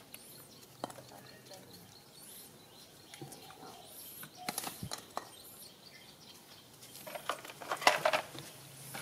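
Small birds chirping thinly now and then in the background, with scattered light taps and scuffs, and a short cluster of louder scuffing and clatter about eight seconds in.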